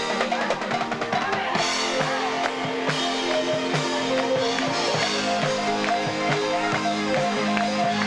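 Live dance band playing: a drum kit keeps a steady beat on bass drum and snare, with cymbal crashes about a second and a half and three seconds in, under electric guitar and held notes.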